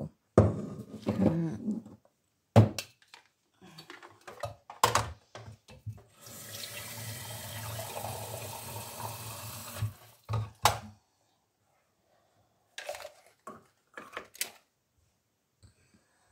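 Water running from a kitchen tap for about three and a half seconds in the middle. Before and after it come sharp knocks and clatter of pots and kitchenware being handled, the loudest a few seconds in.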